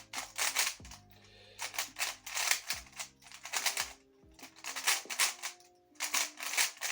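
Hand-turned GAN 13 MAGLEV magnetic 3x3 speedcube: bursts of rapid plastic clicks as its layers are turned and snap into alignment, with brief pauses between bursts.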